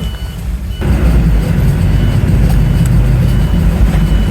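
Inside a moving bus: engine rumble and road noise, rising sharply about a second in, with a short high beep repeating about every half second.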